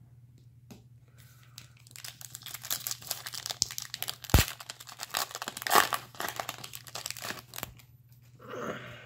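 A foil trading-card pack being torn open and crinkled by hand: a run of crackling tearing with one sharp snap about halfway through.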